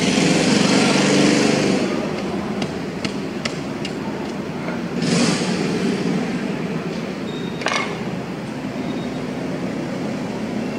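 A machete blade knocks several times in quick succession on a big fish lying on a market counter, and later there is a single ringing metal clank. An engine runs loudly over the first two seconds.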